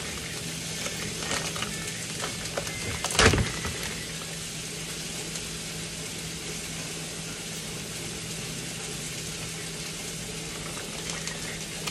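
Steady hiss from a frying pan on a lit gas burner, with a faint low hum under it. A few light clicks come about a second and a half in, and one louder knock about three seconds in.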